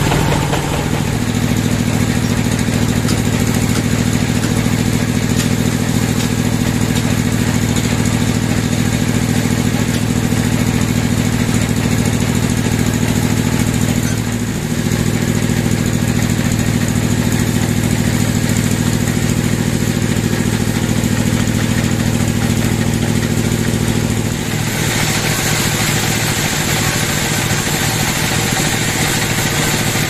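Band sawmill (log bandsaw) running steadily under power. About 25 seconds in the sound changes and a bright hiss sets in, as the blade begins cutting into a teak log.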